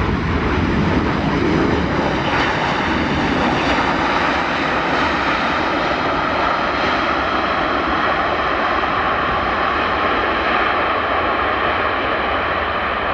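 Airbus A330-200 jet airliner's Rolls-Royce Trent 700 turbofans running loud and steady as the plane rolls out after touchdown, a whine over a deep rush.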